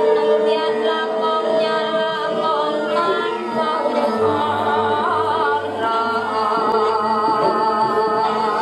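Javanese gamelan music accompanying a Gambyong dance: many held ringing tones, with a singing voice bending over them and a repeated low beat from about four to six seconds in.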